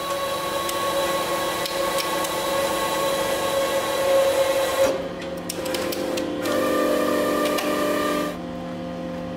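Hydraulic press pump and motor running steadily under load as the ram crushes a visored flight helmet, with sharp cracks and creaks from the helmet shell. About five seconds in, the machine's tone changes as the pressure comes off and the ram draws back, then it settles lower near the end.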